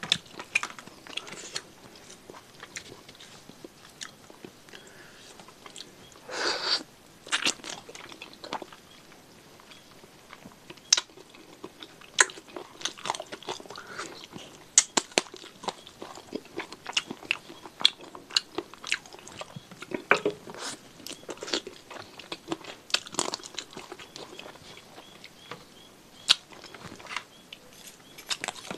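Close-miked chewing and biting of chicken-feet satay, with many sharp, irregular crunches and wet mouth clicks. A longer, louder noise comes about six and a half seconds in.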